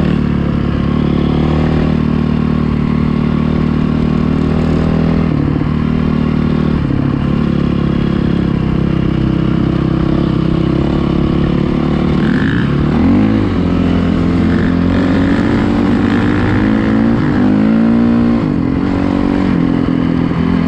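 Dirt bike engine running on a studded-tyre ride over the ice. The pitch holds steady at first, then rises and falls as the throttle is worked, with a bigger rev up and down near the end.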